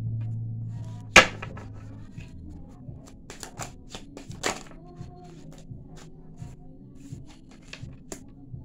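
Tarot cards being shuffled and handled: a sharp card snap about a second in, then a run of short flicking and tapping clicks, with another louder one around the middle.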